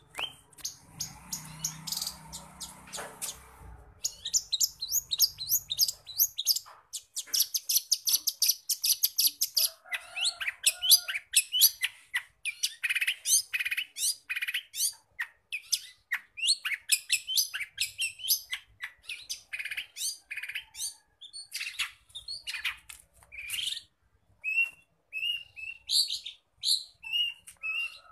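Long-tailed shrike (cendet) singing a fast, dense song full of mimicked calls, with rapid runs of sharp, high chirps. The song gets going in earnest about four seconds in.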